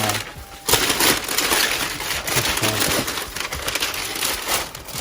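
Close, dense rustling and crinkling handling noise, starting about half a second in and running on steadily.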